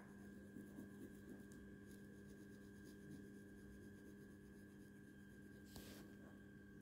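Faint scratching of a ballpoint pen shading on paper, over a steady low electrical hum, with one slightly louder stroke near the end.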